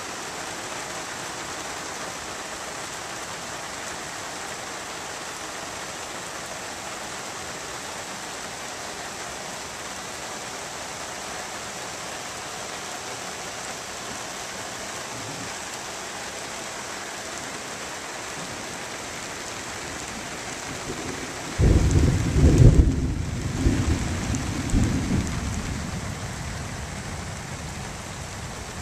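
Heavy rain falling in a steady hiss, with a loud low rumble of thunder rolling in about three-quarters of the way through and dying away over a few seconds.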